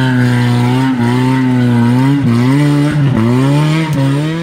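Modified four-wheel-drive off-road jeep's engine revving hard and held at high revs as it climbs a steep dirt slope under load, the pitch dipping briefly and recovering about four times.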